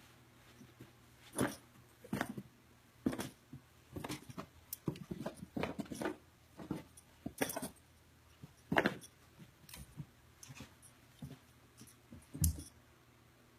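Great Weimar puppy scrambling and pouncing on carpet: irregular thumps and scuffles of paws and body, in quick clusters with pauses between, the heaviest thud near the end.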